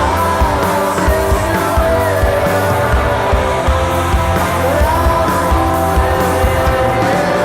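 Live stoner-psychedelic rock band playing loudly and steadily: distorted electric guitars, bass and drums, with a melody line that slides up and down in pitch.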